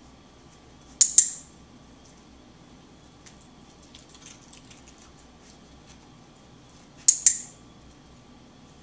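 Handheld dog-training box clicker clicked twice, about six seconds apart, each a sharp double click of press and release. Each click marks the moment the dog does the behaviour being shaped, here touching a hanging cloth.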